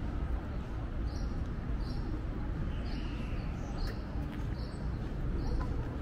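Outdoor city ambience with a steady low rumble, and a small bird chirping repeatedly: short high chirps about once a second.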